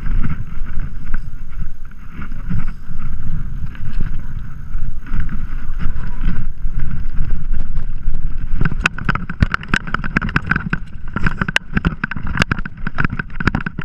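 Wind buffeting an action camera's microphone over the low rumble of a mountain bike rolling down a rough, bumpy grass slope. From about two-thirds of the way in, a run of sharp knocks and rattles sounds as the bike jolts over the ground, ending in a crash as the rider falls.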